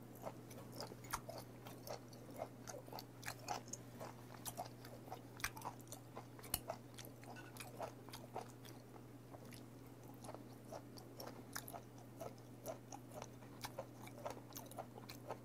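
Close-miked chewing of raw beef: irregular soft mouth smacks and clicks, a few a second.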